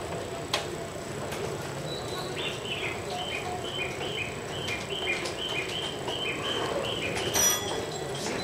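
A high electronic two-note chirp, alternating up and down about two and a half times a second for some five seconds, starting about two seconds in, over the steady background of a train station platform. A short click comes early and a sharper, louder click near the end.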